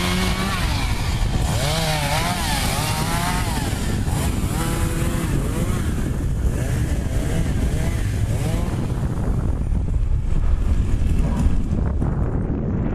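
Wind buffeting the microphone on a moving bike, with a small engine revving up and down in the first few seconds.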